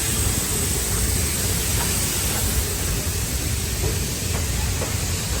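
Steady rolling noise of a passenger train car heard from on board, wheels running on the rails with a few faint clicks.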